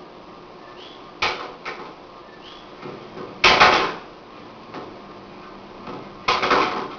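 Sharp slaps and thuds of hands and forearms meeting in a Jeet Kune Do trapping-and-striking drill: two quick slaps about a second in, a louder cluster in the middle, and another cluster near the end.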